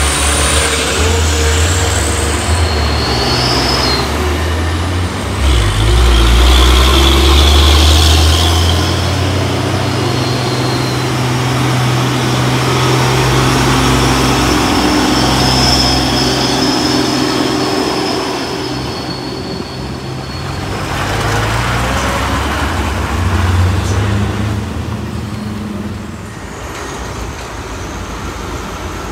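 Heavy truck diesel engine running with its pitch shifting, with a burst of air hiss about six seconds in.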